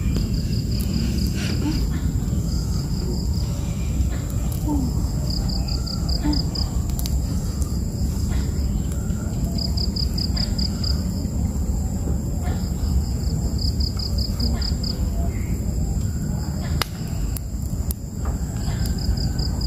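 Forest insects: a steady high-pitched drone with short chirps of about six quick pulses repeating every few seconds, over a steady low rumble.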